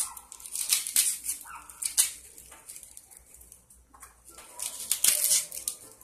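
Dry, papery red onion skin crackling and tearing as it is peeled off by hand with a serrated knife, in irregular rustling bursts. A few faint short squeaks come through as well.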